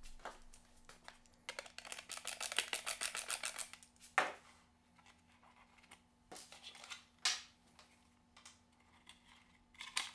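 Hands handling a table tennis robot's plastic controller box: a fast run of small clicks for about two seconds, then a sharp click and a few scattered knocks and clicks.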